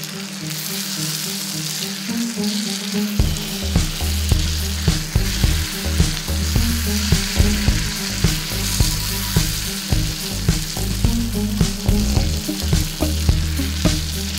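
Chicken pieces sizzling as they fry in oil in a steel wok, stirred with a spatula that clicks and scrapes against the pan. Background music runs underneath, with a bass line coming in about three seconds in.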